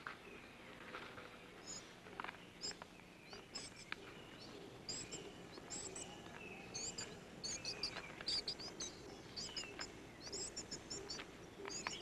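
Rain forest ambience: many short, high-pitched chirps from small animals, coming thicker after the middle, with a few lower whistled glides and faint clicks over a steady low background hiss.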